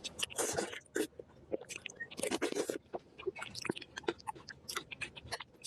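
A person chewing and biting food close to the microphone: irregular crunches and clicks, with two longer crunching bursts, one about half a second in and one near the middle.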